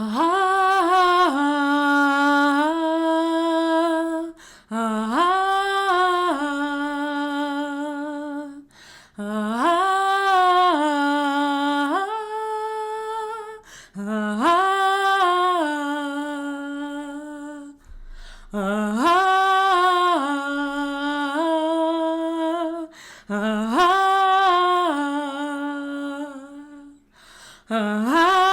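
A woman's voice sings a wordless vocal-play phrase over and over, six times, about every four and a half seconds. Each phrase slides up in pitch, then settles onto a lower note that is held with a slight waver before a short breath.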